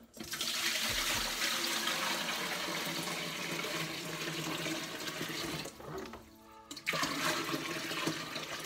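Water poured from a bucket into an empty glass aquarium, splashing and churning on the glass bottom as the tank fills. The pour eases off briefly about six seconds in, then comes back strongly.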